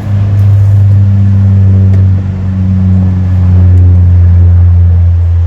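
Airplane engines running, heard as a loud, steady low rumble with faint tones that drift slowly in pitch, from an aircraft at the airstrip beside the beach.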